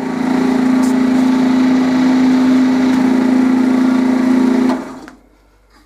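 Small wood lathe's electric motor running with a steady hum, switched off near the end and quickly falling away.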